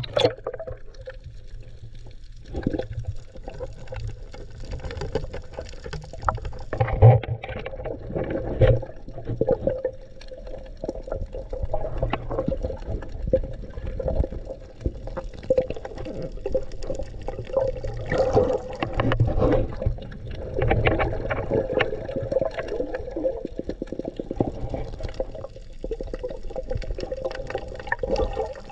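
Muffled underwater sound from an action camera in its waterproof housing: water swirling and gurgling around it as the diver swims, with many small clicks and knocks and a sharper knock about seven seconds in.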